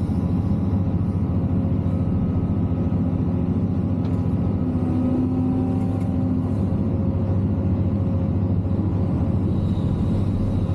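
CAT excavator's diesel engine running steadily, heard inside the operator's cab as a constant low drone, with a slightly stronger hum for a couple of seconds midway.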